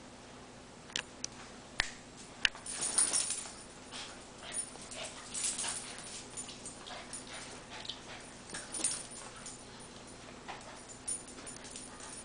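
A Basenji and a Cavalier King Charles spaniel playing on a tile floor. A few sharp clicks of claws on the tile come first, then bouts of scrabbling and scuffling from about three seconds in.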